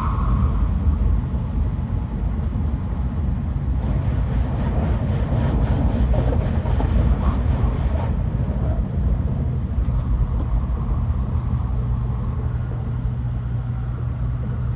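Steady low rumble of a Tokaido Shinkansen Kodama train running, heard inside the passenger cabin. From about four to eight seconds in, a rush of extra noise comes as another Shinkansen passes close alongside. A steadier low hum comes through near the end.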